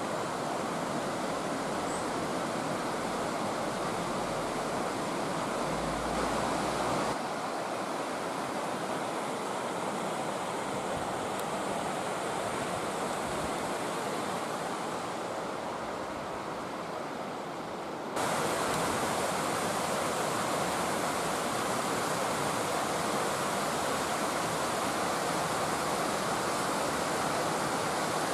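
Steady rushing of a mountain stream below the gorge. The sound shifts abruptly about 7 seconds in and again about 18 seconds in.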